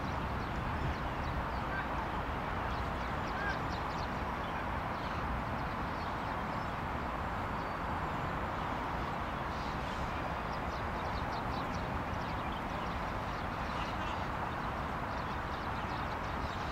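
Steady outdoor background noise, a low rumble under an even hiss, with short runs of faint high chirps about five, ten and fifteen seconds in.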